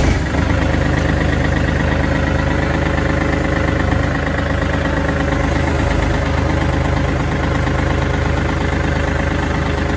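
Kubota L4018 tractor's four-cylinder diesel engine catching right at the start and then idling steadily.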